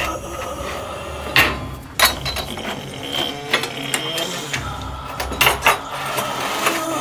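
Metal knives and blades being picked up and handled: a series of sharp metallic clicks and clinks with some scraping and light ringing, mechanical and ratchet-like.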